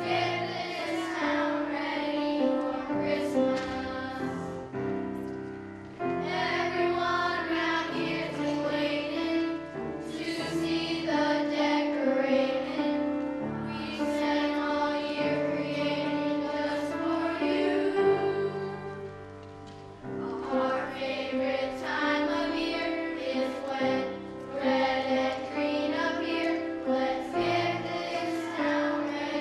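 A group of children singing a song together with instrumental accompaniment, the sound dropping briefly about twenty seconds in.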